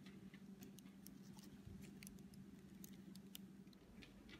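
Faint handling noise: scattered small clicks and light rustles, over a steady low hum.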